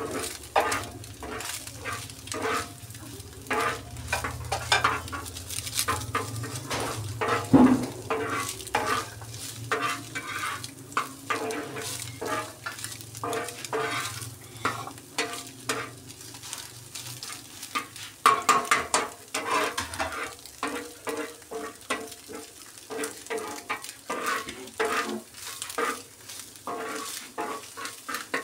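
Metal spatula repeatedly scraping and chopping through scrambled egg bhurji on a flat tawa griddle, about two or three quick scrapes a second, over a light sizzle of frying.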